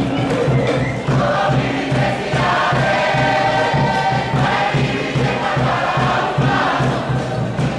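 A large group of voices singing and chanting together in a Cook Islands group song, over a steady rhythmic beat.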